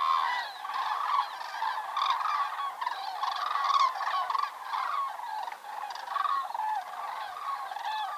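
A large flock of wild geese calling in flight overhead: a continuous chorus of many overlapping calls.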